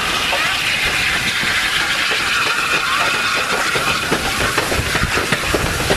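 BR Standard Class 8 Pacific steam locomotive 71000 Duke of Gloucester passing close by: loud hissing steam over the clatter of its wheels on the rails, with the clatter getting busier from about halfway through as the tender rolls past.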